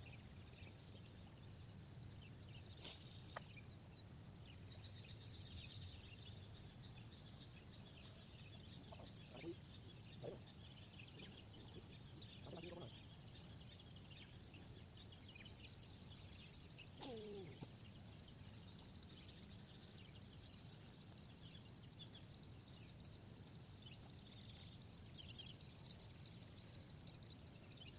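Faint outdoor ambience: a low steady background hiss with scattered faint bird chirps. A few short animal calls come through, one sliding down in pitch about two-thirds of the way through.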